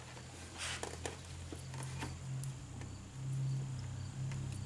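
Faint clicks and rustles of a plastic tail-light wiring connector being handled and unplugged, over a low steady hum.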